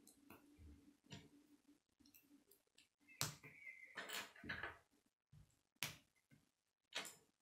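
K'nex plastic rods and connectors clicking as they are snapped together and handled, a string of faint sharp clicks with the loudest a little past three seconds in.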